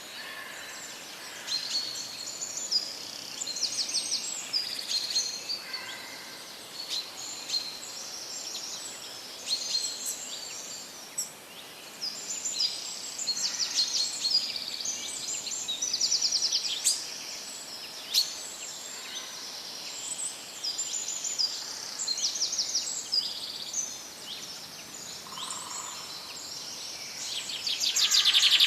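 Several songbirds chirping and trilling over a soft, steady rush of running stream water. The calls come thick and fast throughout, with the loudest burst of song near the end.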